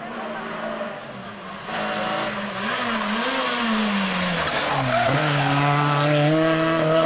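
Renault Clio rally car's engine racing through a hairpin: the revs dip sharply about five seconds in as it brakes and shifts down, then climb steadily as it accelerates out of the bend, with tyre squeal on the tarmac.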